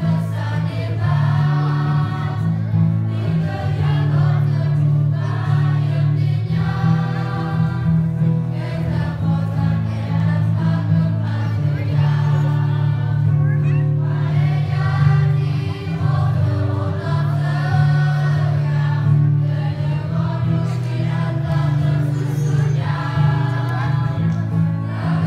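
Youth choir of mixed voices singing a song together, over steady held low notes of an accompaniment.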